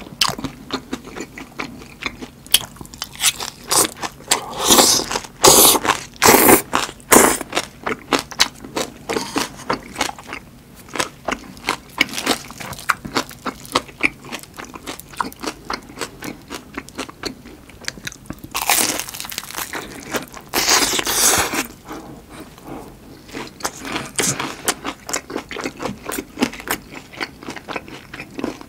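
Close-miked eating sounds: chewing chive kimchi and biting into battered, deep-fried giant chili peppers, made of many small crunches and smacks. Two longer, louder stretches of crunching come about five seconds in and again about twenty seconds in.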